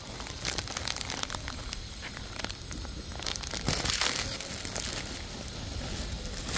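Irregular crackling and rustling with scattered clicks, swelling into a louder rustle about four seconds in.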